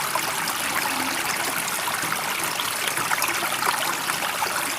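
Steady running water, trickling and splashing evenly without surges.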